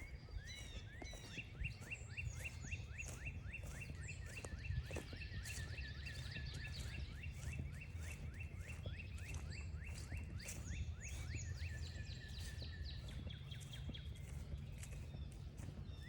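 A dense chorus of short, rising chirps, many overlapping at once, over a steady low rumble, with footsteps crunching along the trail.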